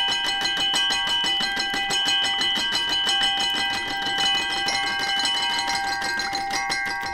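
Toy piano played with fast, rapidly repeated bright, metallic notes over several high tones that ring on for seconds. The toy piano's hammers strike small metal rods.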